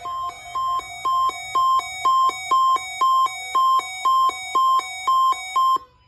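Sangean weather radio's alert alarm, signalling a received Child Abduction Emergency alert. A high beep pulses about twice a second, grows louder over the first couple of seconds, then cuts off suddenly near the end.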